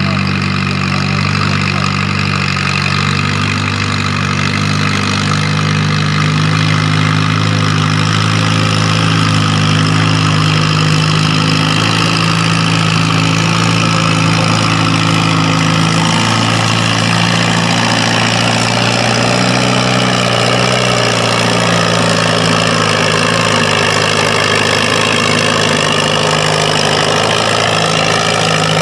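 Pulling farm tractor's engine running loudly and steadily, with a higher whine that wavers in pitch over the last several seconds.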